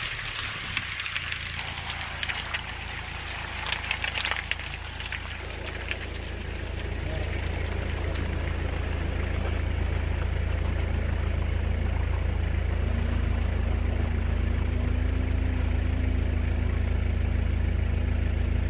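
A vehicle's engine running under way on a rough dirt road, heard from inside the vehicle: a steady low drone with crackling in the first few seconds, the drone growing louder about seven seconds in.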